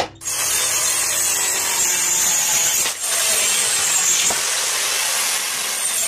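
Handheld electric circular saw cutting through wood, a loud steady noise with a brief dip about three seconds in.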